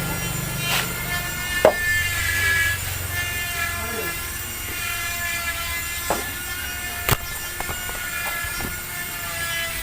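Sharp, scattered metallic clicks and knocks of engine parts and hand tools being handled during motorcycle engine assembly, over a steady background hum. The loudest knock comes about seven seconds in.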